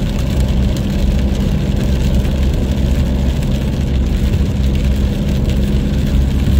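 Steady engine and road noise heard from inside a vehicle cruising at highway speed on a wet road, a low hum with a constant rushing wash over it.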